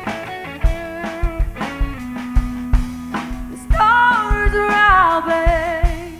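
Live band playing a slow soul-blues ballad with drum kit, bass and electric guitar. About halfway in, a female singer holds a long wordless note with vibrato that glides down near the end.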